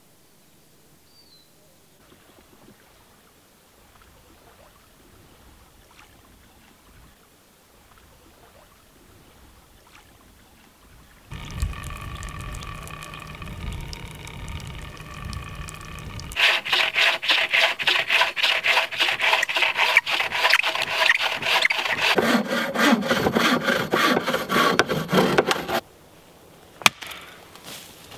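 Hand saw cutting through a log on a wooden sawhorse, loud rhythmic back-and-forth strokes for about ten seconds in the second half, stopping suddenly, followed by a single sharp knock of wood near the end.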